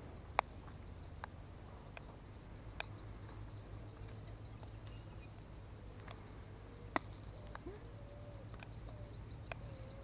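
Faint steady insect trill, pulsing rapidly at a high pitch, with scattered sharp ticks (the loudest about seven seconds in) and a few faint low gliding calls near the end.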